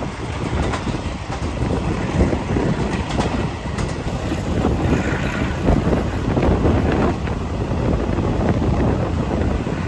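Wind rushing over a microphone held out of an open train window, over the steady running noise of a Taiwan Railways ordinary-class passenger carriage on the rails at speed.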